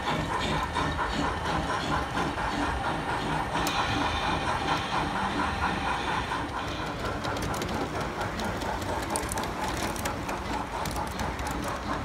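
Model railway train running on a layout over a steady background of hall noise, with a run of small clicks in the last few seconds.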